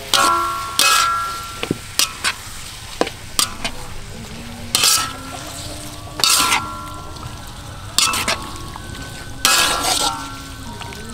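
Metal spatula scraping and stirring pork liver and shredded ginger in a steel wok, with a sizzle of frying underneath. The scrapes come in strokes every second or two, some with a short ring of the wok's metal.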